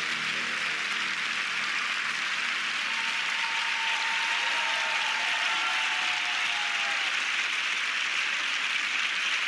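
Studio audience applauding at the end of a song, a steady, dense clapping that holds at an even level throughout.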